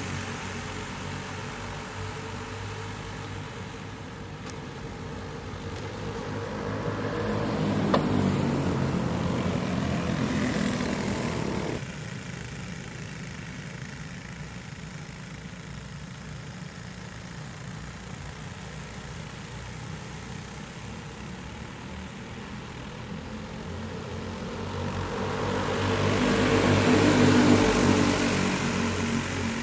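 A pack of small four-stroke go-kart engines drones as the field passes. It swells loud twice, about a third of the way in and again near the end. About twelve seconds in it drops abruptly to a fainter, more distant drone.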